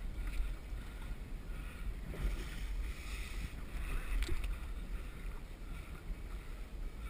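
Low wind rumble on the microphone, with sea water sloshing against the side of a small boat.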